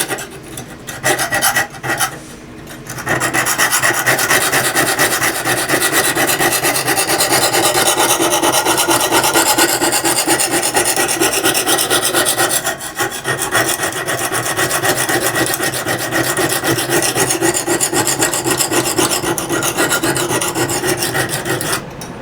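Lansky sharpening hone rubbed rapidly back and forth across the spine of a steel saw blade, a steady scraping rasp as it grinds off metal to reprofile a new bevel in tough steel. A few separate strokes at first, then continuous strokes from about three seconds in.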